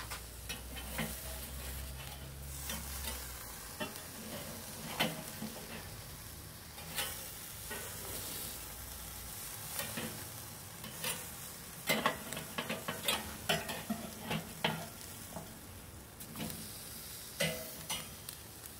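Beef burger patties sizzling on a kettle grill grate, with a metal spatula scraping and clicking against the grate bars as the patties are slid over to the indirect zone. The clicks and scrapes come more often in the second half.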